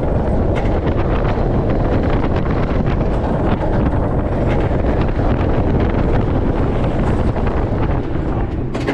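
Heavy wind buffeting the microphone on a moving roller coaster, with the train's deep rumble on the Iron Gwazi hybrid coaster's track, loud and steady.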